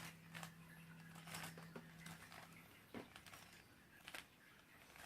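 Faint clicks and rattles of a Rubik's cube's layers being turned, several quick turns scattered through. A faint low hum stops about halfway through.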